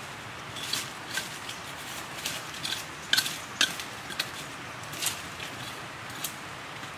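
Dry leaf litter and twigs crackling and snapping in short, irregular clicks as someone moves and handles the forest floor, loudest a little after three seconds in, over a steady background hiss.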